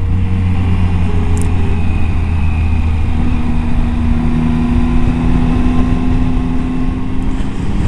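Triumph Tiger 800 XCA's three-cylinder engine running steadily at a cruise of around 40 mph, heard from the rider's seat over a constant rush of wind. The engine note shifts slightly about three seconds in.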